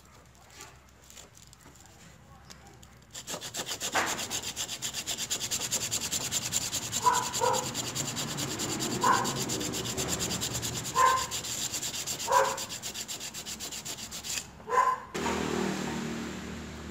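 Hand sanding of a motorcycle gear-indicator switch's copper contact against sandpaper, to rub down its deeply pitted face. Light scratching gives way about three seconds in to fast, even rubbing strokes that run until near the end, with a few short high squeaks over them. A low steady noise comes in near the end.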